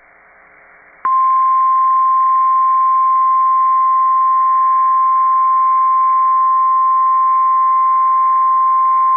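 Emergency Alert System attention tone for a tornado warning: a single steady tone of about 1,050 Hz, the NOAA Weather Radio warning alarm, coming on sharply about a second in after faint hiss. It signals that a warning message is about to be read.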